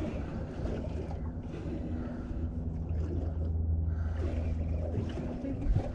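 Boat engine running at a steady hum, with wind and water noise over it.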